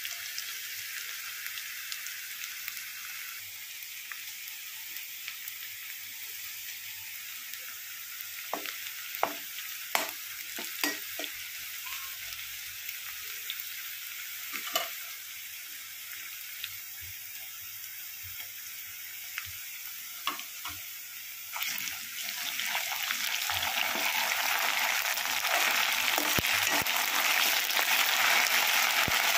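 Sliced onions and curry leaves sizzling in hot oil in a metal kadai, with a few sharp clicks. The sizzling grows louder about three-quarters of the way through.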